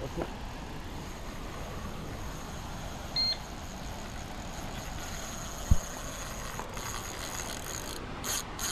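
Steady outdoor background hiss, with one short electronic beep about three seconds in and a single brief low thump near six seconds.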